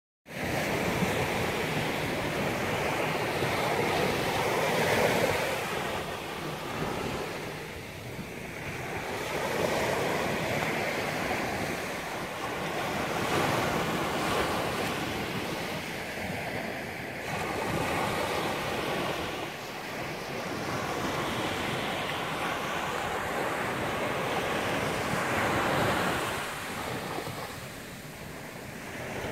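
Ocean surf breaking and washing up the beach, swelling and fading every several seconds, with wind buffeting the microphone.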